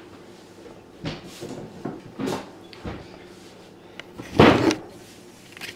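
Kitchen handling noise: a handful of light knocks and bumps, then a louder, longer bang about four and a half seconds in, like a cupboard door or drawer.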